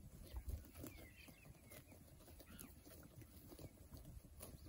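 A flock of young ewe lambs grazing: faint, quick tearing and cropping sounds as they pull up grass and chew it.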